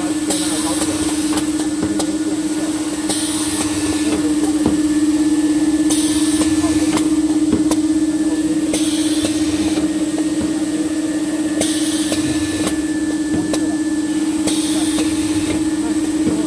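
Automatic band saw maxi roll paper cutting machine running: a steady hum, with a short hiss that repeats about every three seconds and scattered light clicks.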